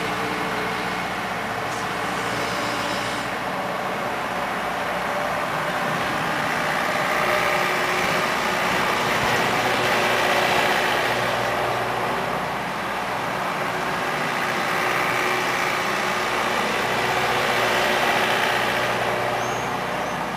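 Takeuchi FR-series zero-tail-swing mini excavator's diesel engine running steadily while the machine slews and works its boom and bucket. The sound swells twice, around the middle and again near the end, as the hydraulics take load.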